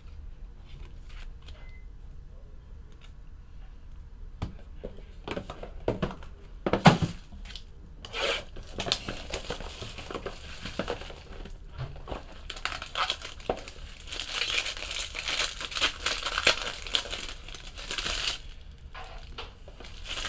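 Plastic shrink wrap being torn and crinkled off a 2017 Topps Tier One baseball card box, with scattered clicks and one loud thump about seven seconds in. The crinkling is densest for about ten seconds in the second half.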